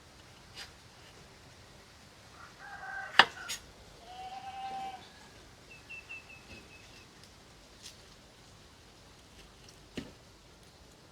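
Farmyard animals calling: a short call, then a longer held call about four seconds in, followed by a quick run of high chirps. A sharp click comes about three seconds in, and another near the end.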